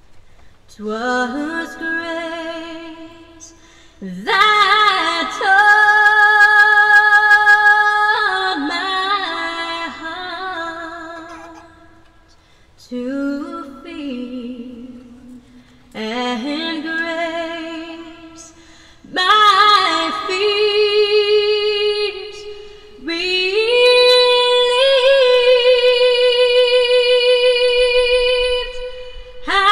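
A woman singing a hymn solo and unaccompanied, in several long phrases with wavering held notes and short breaths between them.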